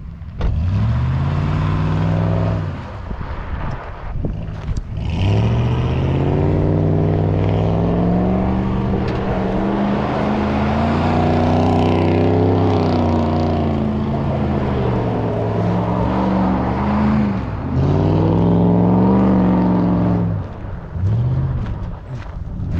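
Dodge RAM pickup truck's engine revving hard as the truck is driven fast on loose quarry gravel, its pitch rising and falling through several long bursts of acceleration with short drops in between.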